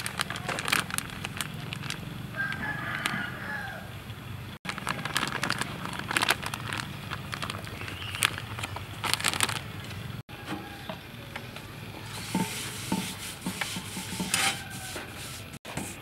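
Rice flour being handled in steel and plastic bowls: rustling of a plastic bag, flour pattering and small knocks against the bowls. Chickens are in the background, with a rooster crowing.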